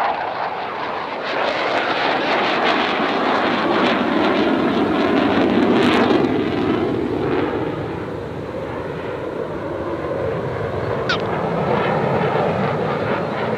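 USAF Thunderbirds F-16 Fighting Falcon jets flying past with a loud, steady jet-engine roar that swells to its loudest a few seconds in, eases for a moment, then builds again.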